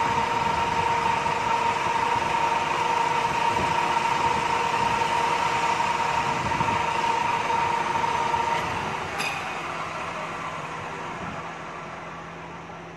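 Lathe running a turning pass on a metal bar, with a steady high whine over the machining noise. A little after nine seconds there is a click, and the machine winds down as the spinning chuck coasts to a stop.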